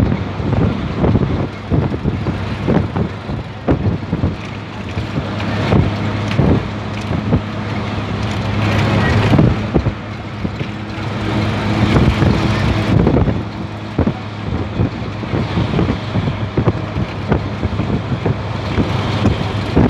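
Bus driving along a road, heard from inside at an open window: the engine runs with a steady hum under rushing wind, and the body knocks and rattles over the road surface.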